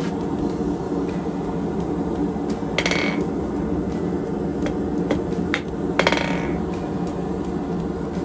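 Hand hammer striking a hot round steel bar on the edge of an anvil, downward glancing blows curling the tip of the taper. There are a few light taps and two louder strikes, about three seconds in and six seconds in, that ring briefly. A steady background noise runs underneath.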